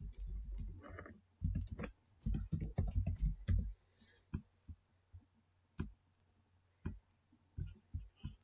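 Typing on a computer keyboard for about four seconds, then single clicks spaced half a second to a second apart, typical of a computer mouse.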